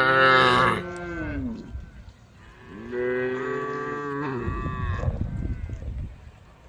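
Cows mooing: a loud moo at the start that drops in pitch as it fades, then a second, longer moo about three seconds in.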